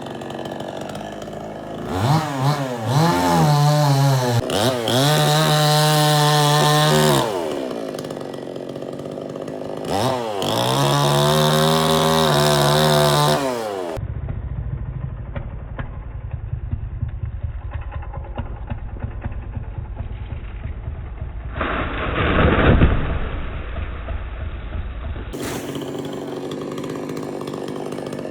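Chainsaw engine revved up to high speed twice, held there for several seconds each time before dropping back, then running at a lower, duller pitch with one brief surge.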